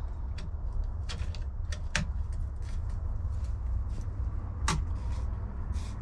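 Light clicks and knocks of a Burgtec Penthouse Mk5 metal flat pedal being handled and threaded onto a mountain bike's crank arm, with two sharper clinks about two seconds and nearly five seconds in, over a steady low hum.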